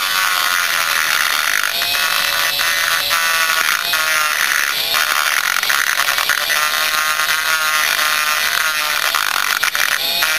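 High-speed rotary grinder with a double-cut bit grinding the transfer port of a Blaster two-stroke cylinder. It gives a steady high whine whose pitch wavers up and down as the bit is worked slowly along the port.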